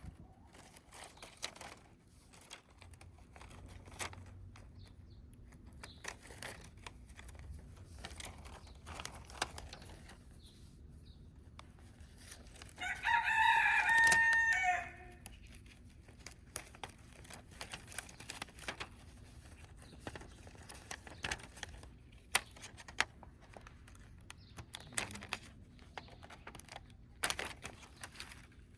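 One loud, drawn-out bird call lasting about two seconds near the middle, over faint scattered clicks and rustling.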